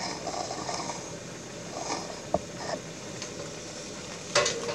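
Pan of wine and butter simmering around a rockfish fillet, a steady soft bubbling, with a sharp click a little past halfway and a short clatter near the end.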